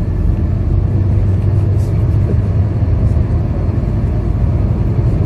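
Scania K230UB bus's five-cylinder diesel engine and road noise heard from inside the cabin while the bus drives along at a steady pace: a continuous, even low drone.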